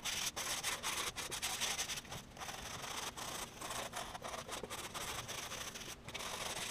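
Hand sanding a wooden aircraft wing rib with 220-grit sandpaper: a steady rasp of quick back-and-forth strokes with brief breaks between them.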